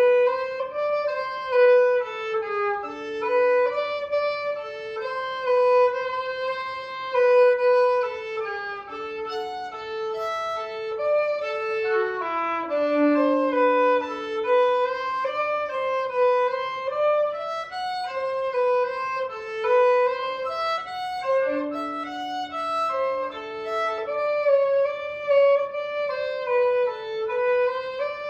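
Background music: a violin playing a slow, flowing melody, with a few lower sustained notes underneath.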